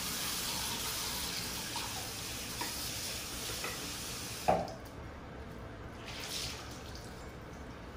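Bathroom sink tap running as a washcloth is rinsed under it. About four and a half seconds in the water stops abruptly with a sharp knock, and a brief splash follows a little later.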